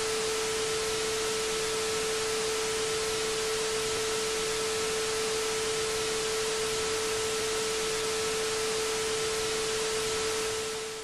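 Steady static hiss with a single held pure tone under it, like a test tone, fading out near the end.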